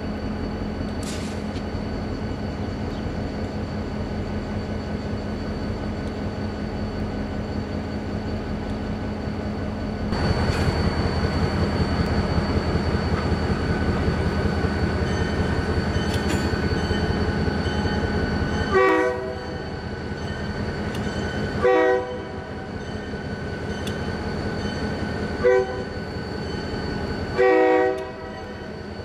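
EMD GP38-2 diesel locomotives running steadily, the engines growing louder about ten seconds in. Then the lead unit's horn sounds four blasts, long, long, short, long: the standard grade-crossing signal.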